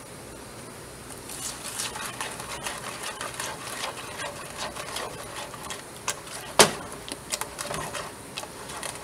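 A plastic potato masher working pectin into mashed strawberries in a stainless steel pot: quick scraping and clacking strokes against the pan begin about a second in, with one sharp knock about two-thirds of the way through.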